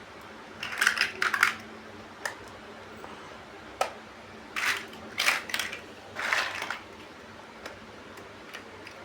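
Plastic building bricks clicking and clattering in about six short bursts as pieces are handled and pressed together.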